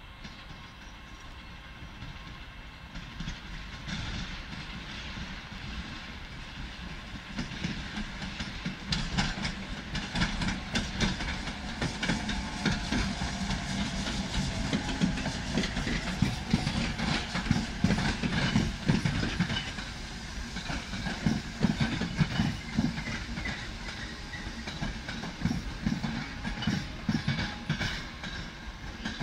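Electric locomotive hauling a train of passenger coaches past on the station tracks. Its wheels click and clack over rail joints and points, and the sound grows louder from a few seconds in and stays loudest through the middle.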